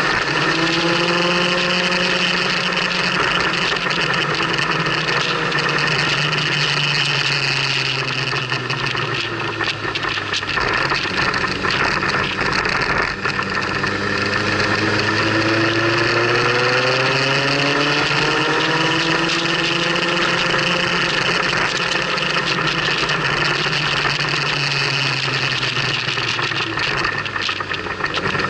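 Motorcycle engine under way with a steady rush of wind. The engine note drops around ten seconds in as the bike slows for a bend, then climbs steadily from about fourteen seconds as it accelerates out.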